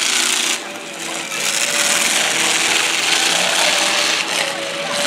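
Demolition derby cars' engines running and revving together, a harsh rasping noise that dips briefly about half a second in.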